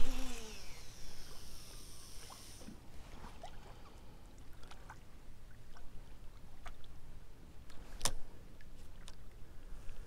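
A fishing rod cast: a swish, then line whirring off the reel for about two and a half seconds, falling in pitch as it slows and stopping abruptly. Later come a few light reel clicks and one sharp click about eight seconds in.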